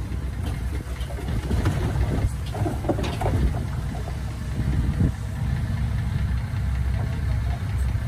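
Diesel engine of earthmoving machinery running steadily, with a few clanks a few seconds in.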